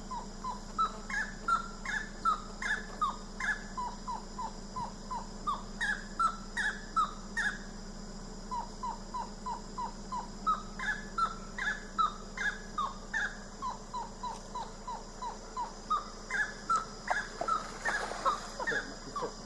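Saracura (wood-rail) calling: a long, loud rhythmic series of short repeated notes, about three a second, rising into higher phrases and broken by a couple of short pauses.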